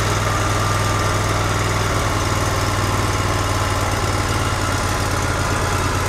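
Wood-Mizer portable sawmill's engine running steadily at idle, with a low, even pulsing hum.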